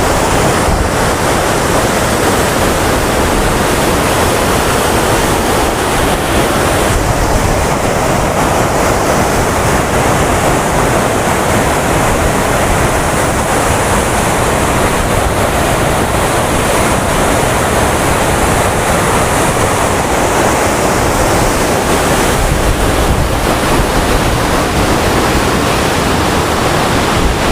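Waterfall in full spate after heavy rain, a loud, steady rush of falling water, with wind from the falls buffeting the microphone.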